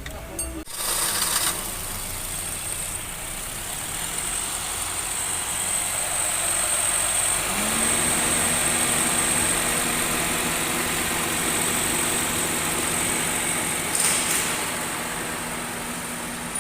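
An engine starts about a second in and then idles steadily. Its low hum firms up and rises slightly about halfway through.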